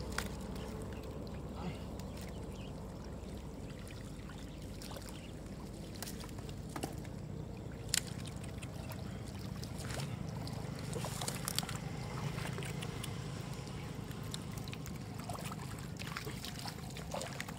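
Hands splashing and sloshing in shallow muddy water while fish are grabbed and dropped into a plastic basket. A few sharp clicks and taps stand out, the loudest about eight seconds in, over a steady low rumble.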